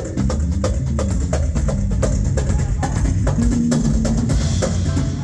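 Live band playing: a drum kit keeps a steady beat of evenly spaced hits while a bass line moves underneath.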